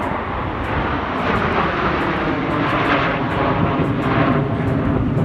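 Airplane flying over, a loud rushing engine noise that swells about a second in and stays loud.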